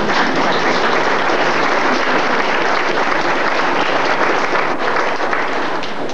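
Audience applauding: a steady round of hand-clapping that stops near the end.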